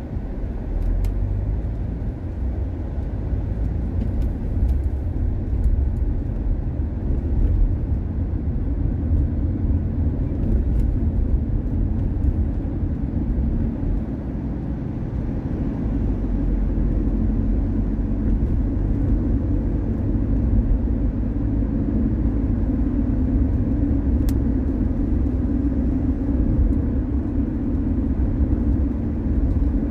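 Car driving on city roads: a steady low rumble of tyres and engine, easing slightly about halfway through and then picking up again.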